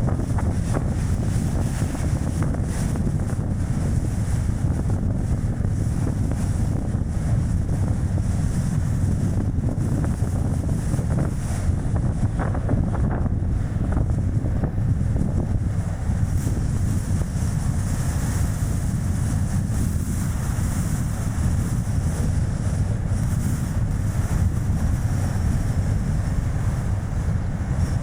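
Strong wind buffeting an action camera's microphone over a steady rumble of road and tyre noise from a Chevrolet Spark driving along.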